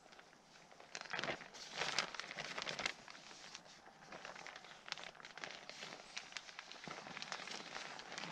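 Nylon stuff sack rustling and crinkling as it is handled, louder in bursts about a second and two seconds in, with lighter scratchy rustles between.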